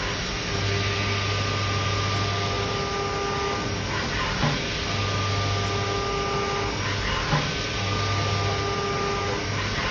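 CNC milling machine cutting metal with an end mill under flood coolant: a steady machining tone over the hiss of coolant spray. The tone comes and goes in stretches of two to three seconds, and there are two brief knocks between stretches.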